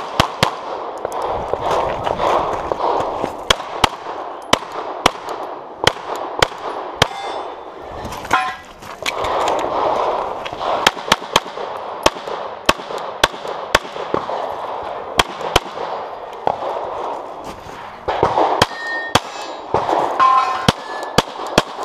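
Competition pistol fired in fast strings of shots, dozens in all with brief pauses between strings. Metal targets clang and ring when hit, most clearly near the end.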